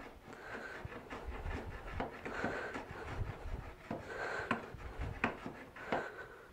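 A router plane shaving the flat bottom of a lap-joint recess in poplar: a series of short scraping strokes, about one every two seconds, with light taps as the plane is set and moved between them. The blade is making contact across the floor of the recess on the last passes at set depth.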